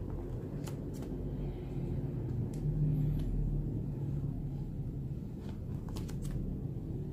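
Clear plastic binder sleeve pages of trading cards being turned, giving a few light crinkles and ticks, over a steady low rumble.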